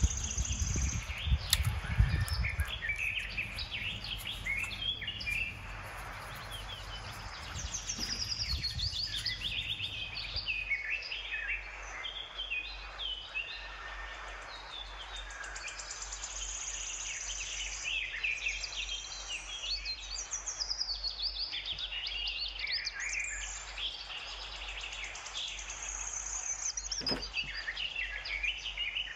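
Birds chirping and singing, many short rising and falling calls overlapping throughout. Low handling noise in the first few seconds, and a single sharp knock near the end.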